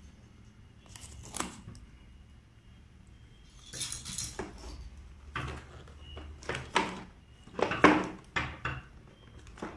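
Cardboard toy box being handled and turned over, with scrapes, knocks and its contents clattering; the loudest knocks come about eight seconds in.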